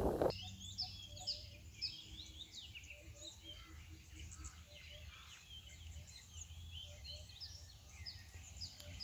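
Several birds chirping and calling, many short notes sweeping downward in pitch, overlapping through the whole stretch, over a faint low hum.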